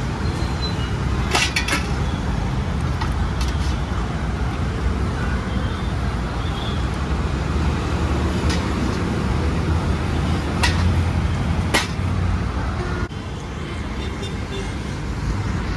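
Steady roadside traffic noise with a low rumble, broken by a few sharp clinks; the level dips slightly a couple of seconds before the end.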